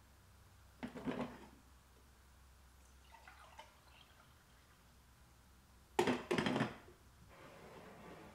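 Ceramic mug set down on a granite countertop with a couple of knocks, then coffee poured faintly from a glass carafe into the mug. About six seconds in comes a louder cluster of knocks and clinks of ceramic and glass on the counter.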